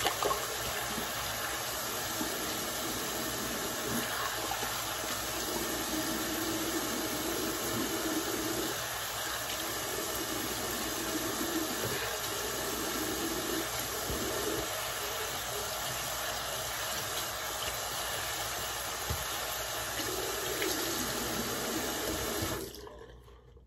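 Bathroom sink tap running in a steady stream, shut off suddenly near the end.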